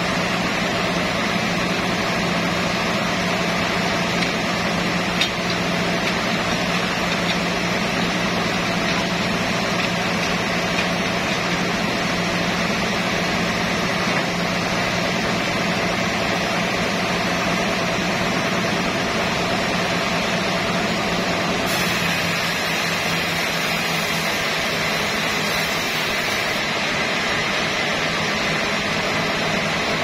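Large sawmill log band saw running steadily: a constant mechanical drone with a low hum under it and no change in pace.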